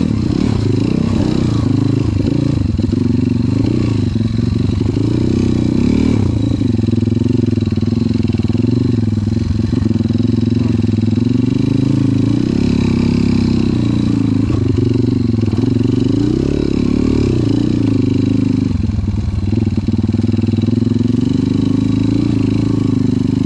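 Off-road trail motorcycle engine running under load, its pitch rising and falling again and again as the throttle is worked.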